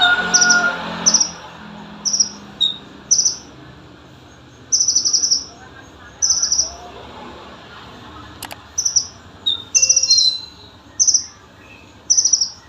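Konin, a small sunbird, singing a series of short, high, trilled chirps: about a dozen bursts of roughly half a second each with gaps between, and a few thin single notes in between.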